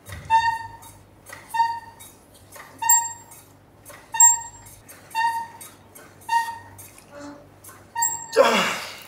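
Cable crossover machine squeaking with each rep, a short high chirp about once a second with fainter ones in between, as the handles are pulled down and let back. Near the end comes a louder, rough rising noise.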